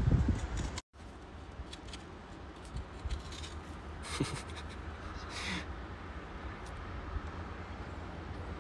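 A stick scraping and digging in loose soil, with short scratchy scrapes about four and five and a half seconds in, over a low steady rumble. A louder low bump at the very start cuts off abruptly.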